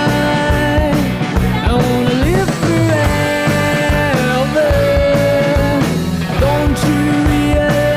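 Rock song with a drum beat and a held, gliding sung melody.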